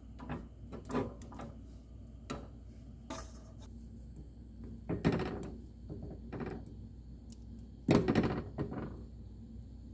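Silicone spatula knocking and scraping against a saucepan while stirring blocks of margarine as they melt, with scattered light clicks and two louder dull knocks about five and eight seconds in.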